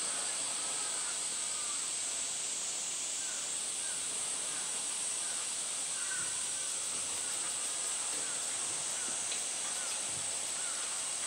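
Steady, high-pitched drone of a summer cicada chorus.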